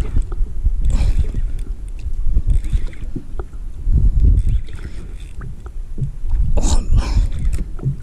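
Wind rumbling on the microphone in irregular gusts, over the sound of the sea around a small boat.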